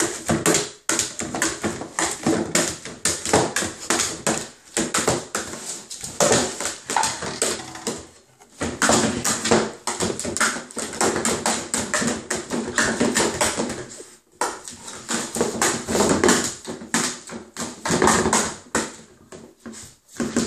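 A Hungarian vizsla digging through a plastic box of dog toys: a steady clatter of knocks, taps and rustling as the toys and the plastic box are shoved about, pausing briefly twice.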